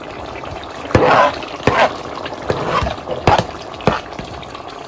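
Prawns and onions frying in a pan with a steady sizzle, broken by about five sharp knocks of a utensil against the pan as they are stirred.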